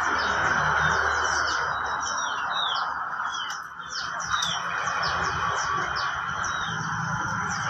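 Many small birds chirping together: dense, overlapping short high chirps, several a second, over a steady background hiss.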